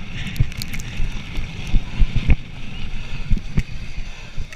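Mountain bike rolling fast over a rough dirt and wood-chip trail, with wind buffeting the microphone and the bike knocking and rattling over bumps, the hardest jolts about two seconds in.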